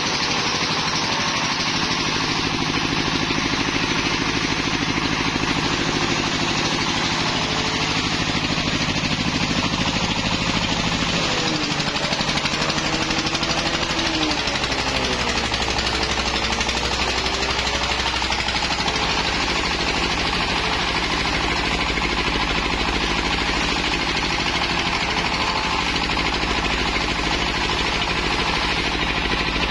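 Grass chopper driven by a single-cylinder Jiang Dong diesel engine, running hard as grass stalks are fed in and chopped, with a loud, steady clatter. About halfway through, the machine's pitch dips and then climbs back as a bundle loads it.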